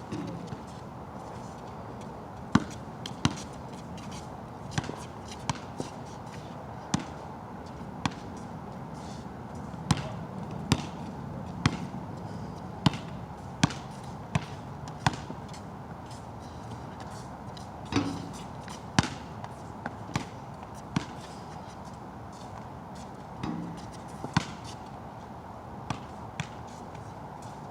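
A basketball bouncing on a wet court, with irregular sharp bounces and short runs of dribbling, over a steady hiss of rain.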